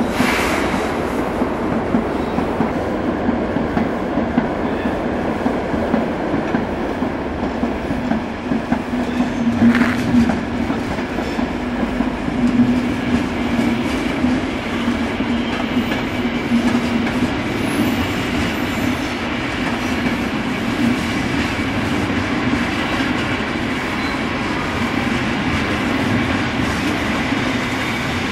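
A train running on the rails: a steady running noise with a few sharp clicks, and a steady hum for several seconds in the middle.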